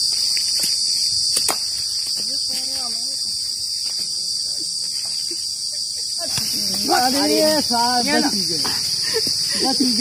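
Steady high-pitched insect drone, with a few faint clicks in the first couple of seconds. From about six seconds in, a voice calls out loudly over it.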